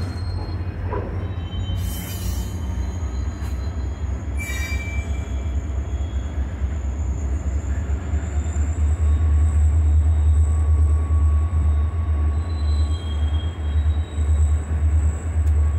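Freight cars rolling slowly past on steel rails: a steady low rumble that grows louder after about nine seconds, with a thin, high wheel squeal that slowly rises and holds through the second half, and two brief sharp scraping noises about two and four and a half seconds in.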